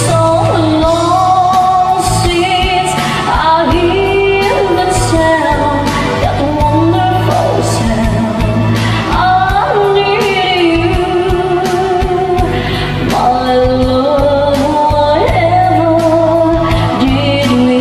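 Music: a karaoke backing track of a pop ballad with singing over it.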